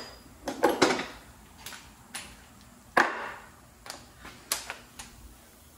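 Scattered metal clicks and knocks of a socket and tool being handled and fitted onto the outer tie rod end's nut, at uneven intervals, the loudest knock about three seconds in.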